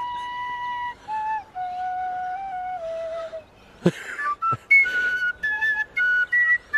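Tin whistle played as a simple tune of clear held notes, first lower and slower, then shorter and higher after two sharp thumps about four seconds in.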